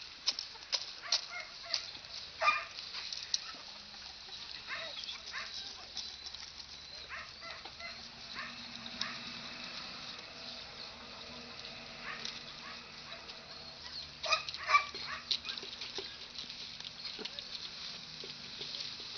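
Farmyard animals feeding, with pigs and poultry crowding in: a busy clatter of short sharp clicks and pecking, with scattered short calls, the loudest a couple of seconds in and again around fourteen seconds.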